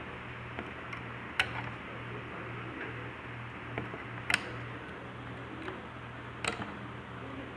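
Sharp clicks and snaps of rubber bands being stretched onto the pegs of a plastic bracelet loom, several light ones and three louder ones a couple of seconds apart, over a steady low hum.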